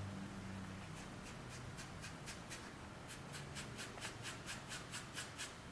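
Blush being rubbed onto a craft-foam figure's cheeks: quick, faint, scratchy rubbing strokes, about four a second, starting about a second and a half in.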